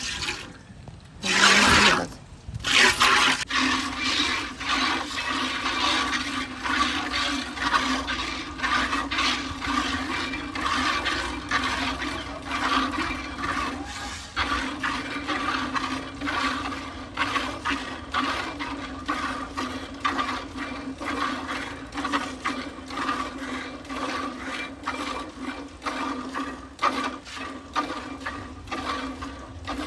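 Cow's milk squirting into a steel pail by hand-milking, in a quick regular rhythm of about two squirts a second over a steady hum. Two louder splashes come in the first few seconds.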